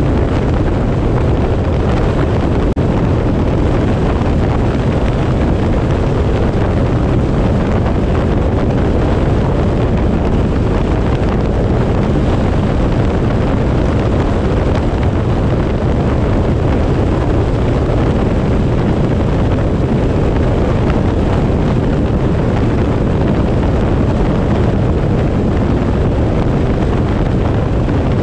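Loud, steady rush of wind over the microphone with road noise from a vehicle driving along a highway at speed.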